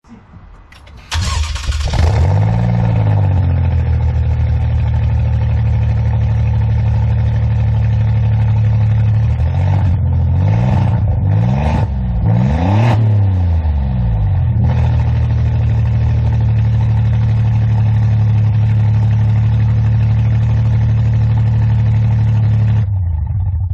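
Twin-turbo V6 of an Alfa Romeo Giulia Quadrifoglio, breathing through an Akrapovič Evolution exhaust with open downpipes, starts with a loud flare and settles to a steady idle. A few quick throttle blips come around the middle, then it idles again until the sound cuts off near the end.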